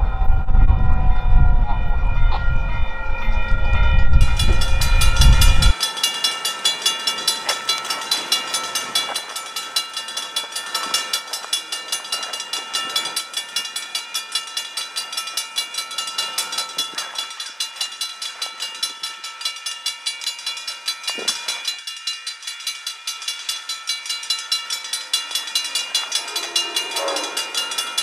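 Railroad grade-crossing warning bells ringing steadily, a fast even ding with the crossing gates lowered. A heavy low rumble covers the first few seconds and stops abruptly.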